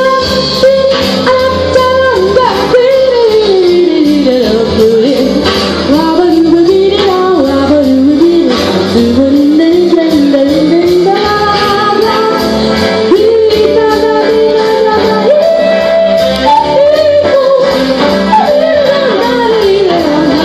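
A girl singing a slow melody into a microphone over backing music with a steady beat, her voice sliding between notes and holding long ones.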